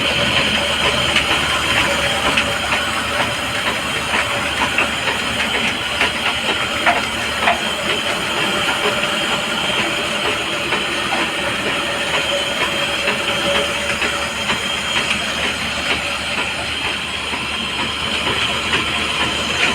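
A 7.5 HP electric atta chakki (flour mill) running steadily: a loud, even rushing noise with a faint steady hum under it and scattered small ticks.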